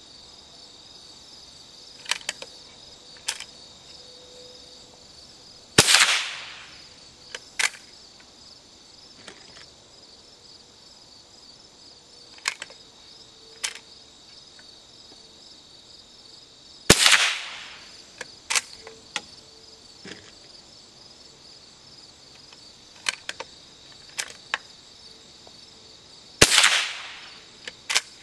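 Three .22 rimfire rifle shots about ten seconds apart from a single-shot Cooey Model 39 with a 26-inch barrel firing CCI Stinger rounds; each sharp crack trails off briefly. Between the shots come small clicks of the bolt being worked to eject and reload, over steady cricket chirping.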